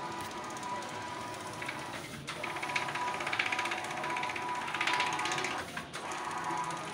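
Wide-format inkjet printer running as it prints a wallpaper roll: a steady whine with a rapid mechanical clicking that swells and fades, dipping briefly twice.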